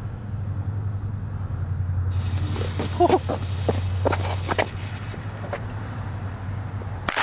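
Lit fuse of an M150 firecracker hissing and sputtering from about two seconds in, with a few sharp crackles, over a steady low hum. Near the end the hum cuts off abruptly under a sudden burst of noise.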